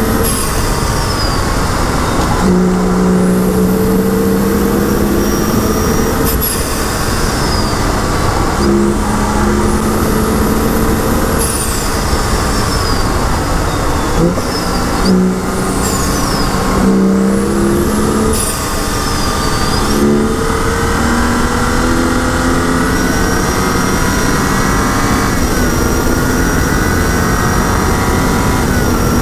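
2011 BMW 135i's turbocharged 3.0-litre inline-six driven hard on a race track: the engine note climbs and breaks off at each gear change, drops away under braking for corners, then pulls up hard again. Steady wind and tyre noise run underneath.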